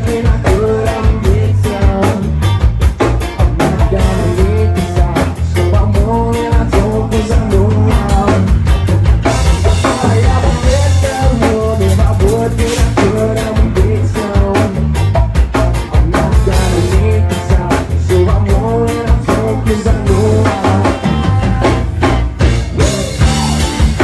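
Live band playing loud: electric guitar over a drum kit, with a heavy low end and no break in the music.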